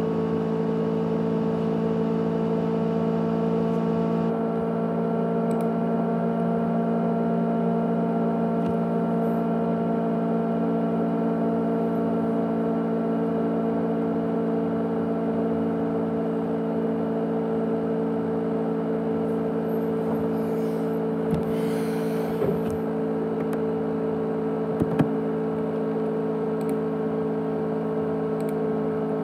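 A 500 GB USB external hard disk drive running with a steady hum made of several constant tones. A short rustle about three-quarters of the way through and a couple of sharp clicks shortly after.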